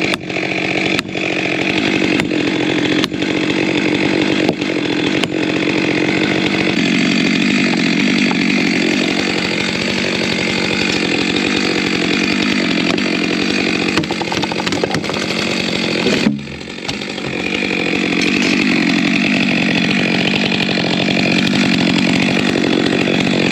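Chainsaw running at high revs, cutting wood. It eases off briefly about 16 seconds in, then revs back up.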